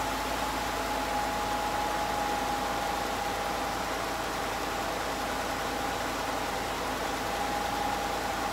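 Ford F-150 engine idling steadily with the hood open, a steady whine running through it, on its first run after the VCT solenoids were replaced.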